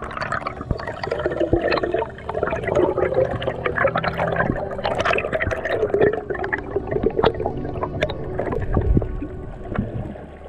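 Underwater bubbling and gurgling of water around a diver's camera, with many small clicks and pops.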